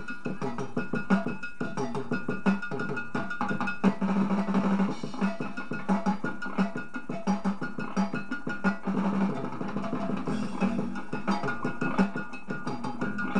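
Rock band playing, with a drum kit keeping a steady beat under electric guitar.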